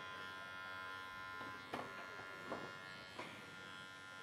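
Electric dog-grooming clippers buzzing steadily as they cut a Shih Tzu's coat, with three short clicks about halfway through.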